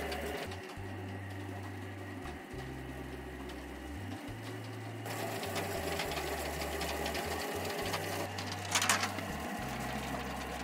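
Drum-type potato peeling machine running, its spinning disc tumbling small potatoes so they rattle against the drum's walls. There is a short, louder clatter about nine seconds in.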